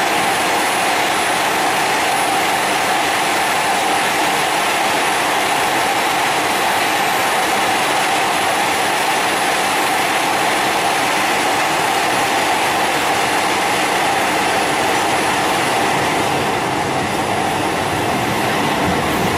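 Italo AGV high-speed electric train running past, a steady rushing noise with a faint high whine above it, easing off slightly near the end.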